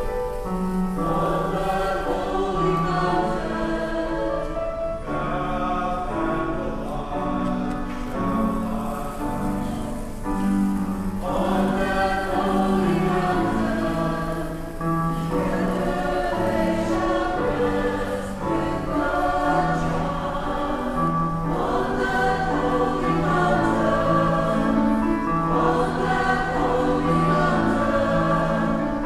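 Church choir singing a hymn over sustained low accompaniment notes, a communion hymn.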